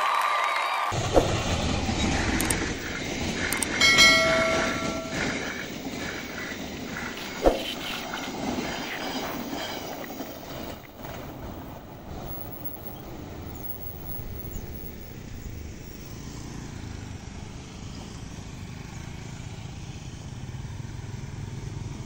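Passenger train running past on the tracks: a steady rumble of wheels on rail, with a short horn blast about four seconds in and a couple of sharp clicks. The rumble then slowly fades as the train moves away.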